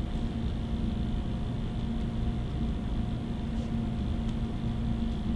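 Steady background room tone: a low rumble and hiss with a constant electrical-sounding hum, unbroken throughout, with a couple of faint ticks near the end.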